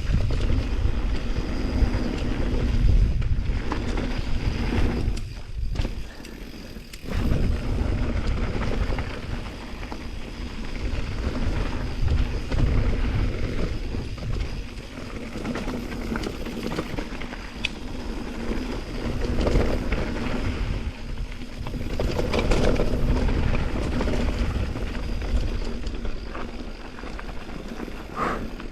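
Wind buffeting the microphone with tyre and trail rumble from a mountain bike riding downhill at speed, easing briefly about six seconds in.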